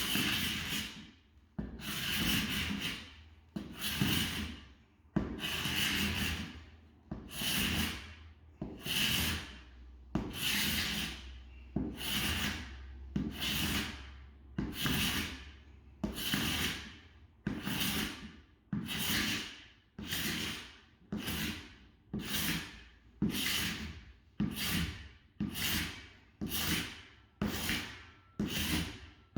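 Hand strokes of an abrasive tool rubbing across hardwood flooring, repeated evenly about once a second, each stroke a short rasping swish.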